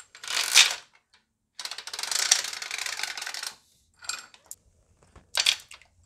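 Steel timing chain of a Mercedes OM646 diesel engine, just broken open, its links clinking and rattling as it is handled. There is a short clink, then a longer rattle of about two seconds, then two more brief clinks.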